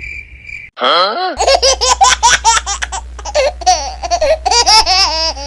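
A brief steady high beep, then a rising squeal about a second in. After that comes a long run of high-pitched laughter in quick, bouncing bursts, a meme sound effect.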